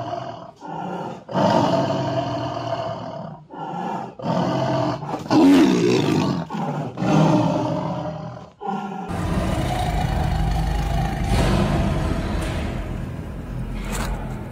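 White tiger snarling and growling over its meat, in a run of short snarls about a second apart. From about nine seconds in, this gives way to a long, continuous low growl.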